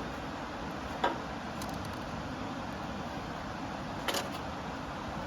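Wood fire crackling in an 18-litre tin-can fire pit, with sharp pops about a second in and about four seconds in, over the steady rush of a river.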